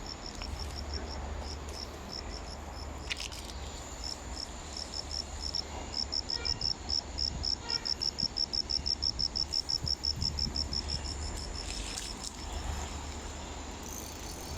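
Crickets chirping: a fast, even train of high pulses, loudest in the middle, over a low steady hum.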